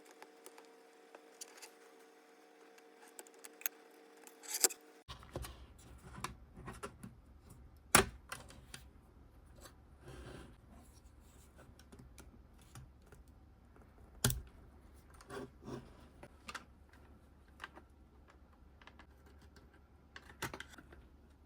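Scattered small clicks and scrapes of a screwdriver prying at a gauge cluster's LCD screen and the foam tape holding it to the circuit board, with a few sharper clicks.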